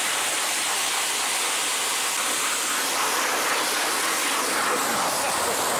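Jet engine, described as a V1 doodlebug engine, running and blasting its exhaust at a spinning rotisserie chicken: a steady rushing hiss that holds unbroken throughout.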